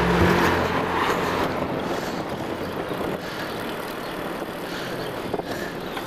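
Even rushing of wind and rolling noise from riding a bicycle, with the camera mounted on the bike; background music ends about half a second in.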